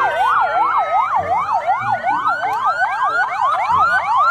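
Several ambulance sirens sounding at once. A fast yelp rises and falls about three times a second, with a slower wail gliding underneath it.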